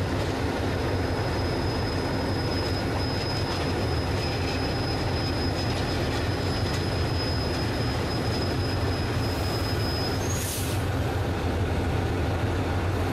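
Passing diesel locomotive hauling passenger coaches, its engine giving a steady low drone. A thin, high, steady squeal runs over it and stops about ten seconds in, just as a short rush of hissing noise comes.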